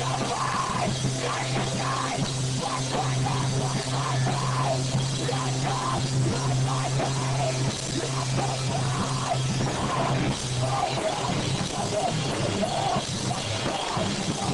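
Live rock band playing: drum kit with cymbals and electric guitar. A steady low note holds until about ten seconds in, where the playing changes.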